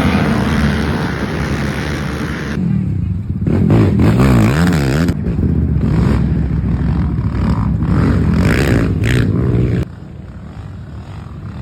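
Racing ATV engine running hard and revving up and down in several short clips cut together, quieter for the last couple of seconds.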